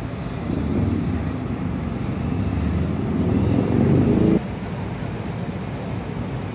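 An engine running and growing louder, then cutting off abruptly about four seconds in, leaving a steady background hum.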